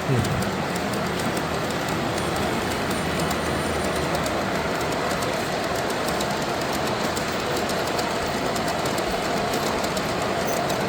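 Model trains running on a show layout: a steady rumble and clatter of wheels on track, with a short falling tone at the very start.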